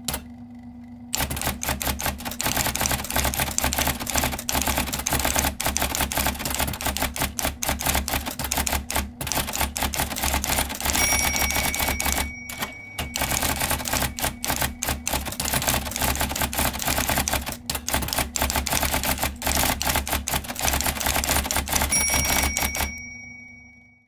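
IBM Selectric III electric typewriter being typed on: a fast, continuous run of keystroke and typing-element clicks over the steady hum of its running motor, with a short pause about halfway. A short ringing tone sounds twice, near the middle and near the end.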